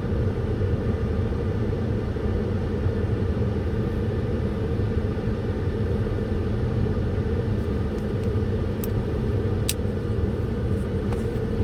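Steady low rumble of a vehicle, with a couple of faint sharp clicks about nine and ten seconds in.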